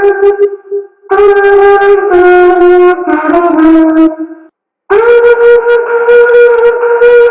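Mouth mimicry of a wind instrument, like a bugle or trumpet, playing a slow melody of long held notes. It comes in three phrases, with short breaths about a second in and a little after the middle.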